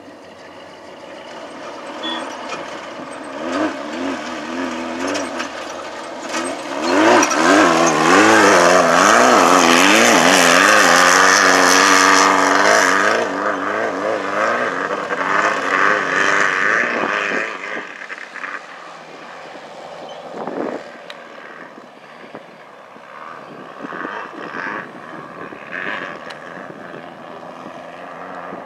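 Off-road race car approaching and passing at speed, its engine pitch rising and falling quickly as the throttle works over whoops. It is loudest through the middle, then fades away.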